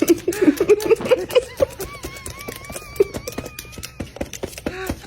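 Birds pecking rapidly at food, a fast run of sharp clicks, with short low calls throughout and a wavering whistle-like call from about a second and a half in to about four seconds in.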